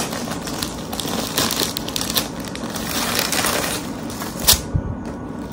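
Clear plastic polybag crinkling and crackling as it is handled and a T-shirt is pulled out of it, with one louder sharp crackle about four and a half seconds in.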